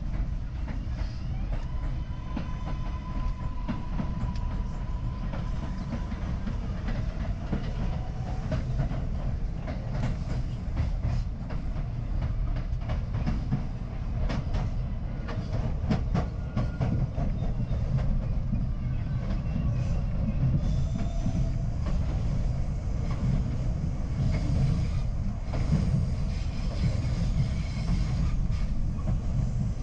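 R62A subway train running along the track, heard from inside the lead car: a steady rumble of wheels on rail with clicks from rail joints. A faint whine comes in about two seconds in and fades a few seconds later. Faint high-pitched squealing joins in the last third.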